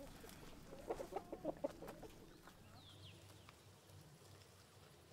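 Domestic chickens clucking: a quick run of about seven short notes about a second in, followed by two short high falling chirps.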